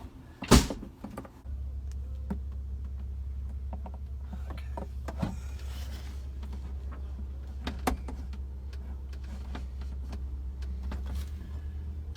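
A sharp clack about half a second in, then the toilet's electric pump motor running with a steady low hum for about ten seconds. It runs freely, without binding, after the valve repair.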